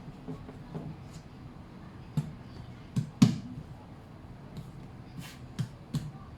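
Scattered light knocks and clicks of hands handling dough and kitchen things, about eight of them, the sharpest a little past three seconds in.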